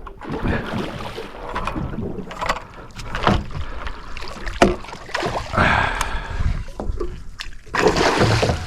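Irregular knocks and splashing around a small boat as a hooked barramundi is fought and brought alongside, with a louder splash about eight seconds in.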